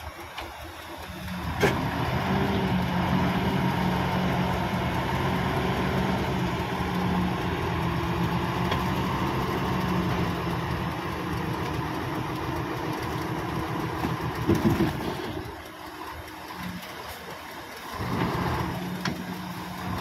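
Dump truck's diesel engine running raised to drive the hydraulic tipper as the loaded bed lifts, a steady hum that starts about a second in after a sharp click. It eases off for a couple of seconds after a brief louder surge near the three-quarter mark, then picks up again near the end as the bed tips further.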